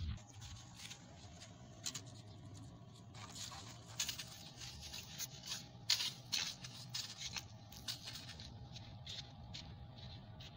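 Stiff-bristled brush sweeping or scrubbing a tiled floor, in short, irregular scraping strokes over a faint steady hum.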